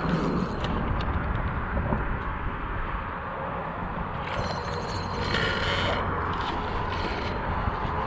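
Spinning fishing reel working as a hooked fish is fought, its mechanism creaking and clicking over a steady low rumble of traffic.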